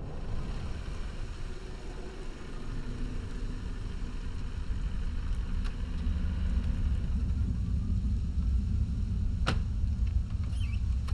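Low, steady rumbling ambience that swells slightly over the first few seconds, with a faint click about six seconds in and a single sharp knock about nine and a half seconds in.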